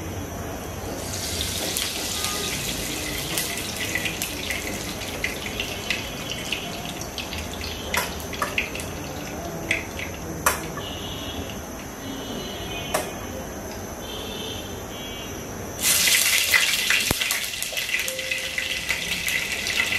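Soybean oil and ghee heating in a pan on a gas stove, sizzling with a steady hiss and scattered sharp crackles; the sizzle grows much louder about four seconds before the end as the oil gets hot enough for the popcorn kernels.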